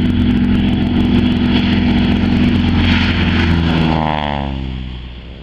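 1977 Air Tractor spray plane's nine-cylinder Pratt & Whitney radial engine and propeller on a low fly-by: a loud, steady drone that drops in pitch as the plane goes past about four seconds in, then fades as it flies away.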